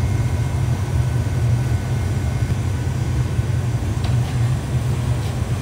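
Gas-fired glass furnace and burners running with a steady low rumble.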